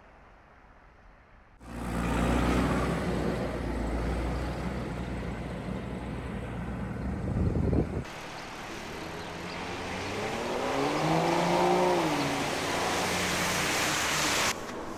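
Motor vehicle traffic. An engine runs close by, starting suddenly about two seconds in. After an abrupt cut, another vehicle's engine rises and then falls in pitch as it goes by, and the sound stops sharply near the end.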